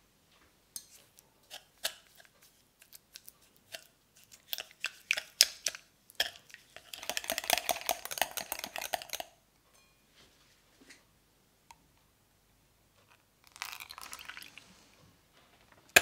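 Wire whisk beating cream cheese and sugar in a glass bowl: scattered clicks and taps of the wires against the glass, then about two seconds of fast, steady whisking and scraping, and a shorter, softer spell of whisking near the end.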